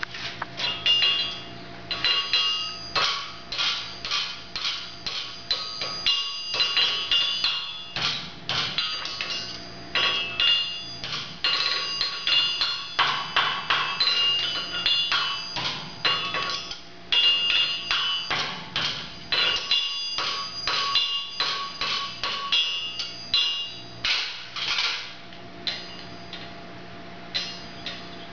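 Farrier's hammer striking a red-hot steel horseshoe on an anvil, shaping it: quick ringing blows at about two to three a second, in runs broken by short pauses.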